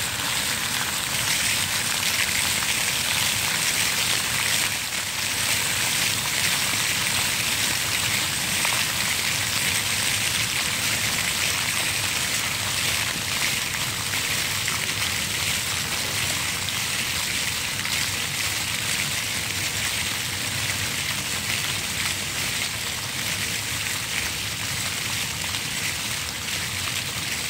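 Rows of fountain jets spraying up from the paving and splashing back onto wet stone, a steady hiss of falling water.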